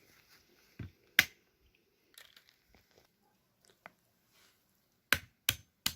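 A few sharp clicks or knocks: one about a second in, then three in quick succession near the end, with faint handling noise between.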